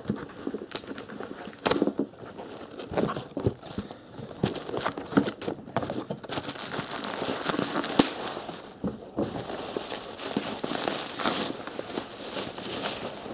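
Plastic shipping mailer and cardboard packaging being torn open and handled, with irregular crinkling and crackling of the plastic wrap and rustling cardboard. The rustling grows denser about halfway through.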